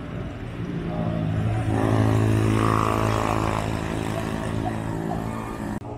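A motor vehicle's engine running close by with a steady hum, swelling louder for a couple of seconds and then easing off, cut off abruptly near the end.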